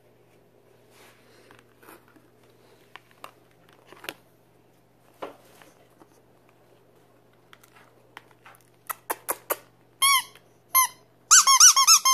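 Squeaky dog toy squeaking: a few faint clicks, then several short, loud squeaks that rise and fall in pitch, coming quickly one after another near the end.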